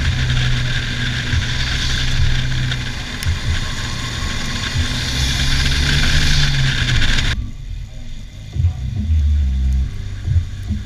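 Mazdaspeed6's turbocharged 2.3-litre four-cylinder running steadily at speed, under loud tyre and wind rush from new Michelin Pilot Sport tyres, heard from low beside the front wheel. About seven seconds in the rush cuts off suddenly, leaving a low rumble with occasional thumps as the car moves slowly.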